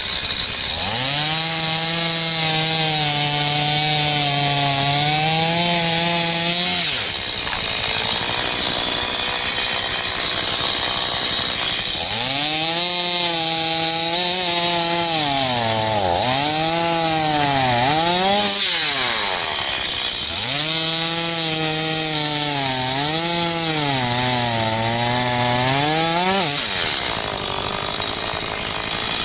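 Gasoline chainsaw cutting through dead wood. The engine pitch sags and recovers over and over as the chain bites into the wood, with a few stretches of steadier, higher-revving run between cuts.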